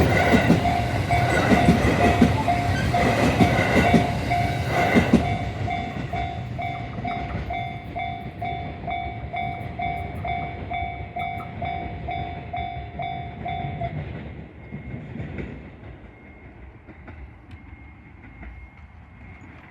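JR East 701 series electric train, four cars, running past with its wheels clattering on the rails, then fading away over a few seconds. Through this, the level crossing's electronic warning bell (the JR standard alarm tone) rings about twice a second, stopping about 14 seconds in.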